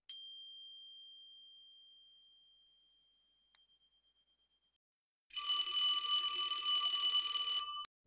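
A single bell ding that rings out and fades over a few seconds, with a faint second ding about three and a half seconds in. Then an alarm-clock bell rings loudly and steadily for about two and a half seconds and cuts off abruptly.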